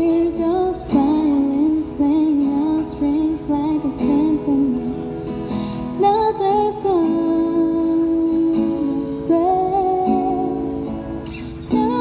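A woman singing a slow, gliding melody, accompanying herself on acoustic guitar.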